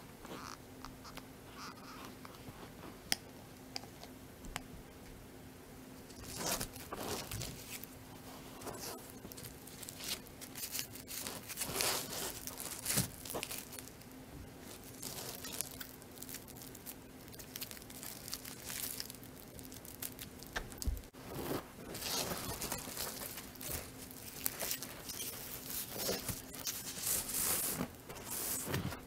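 Crinkling and tearing of white paper wrapping as a gold-tone chain strap is unwrapped, in irregular bursts from about six seconds in, after a few light clicks of the wallet being handled.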